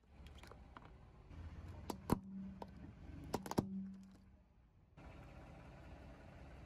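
Small plastic toys cracking under a slowly rolling car tyre on asphalt: two clusters of sharp snaps about a second and a half apart, each followed by a short low hum.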